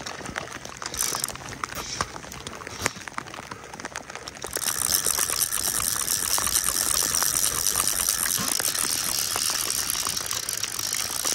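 Fly reel's click-and-pawl drag ratcheting as a hooked fish is played. Scattered clicks at first, then a steady rapid ratcheting from about four and a half seconds in.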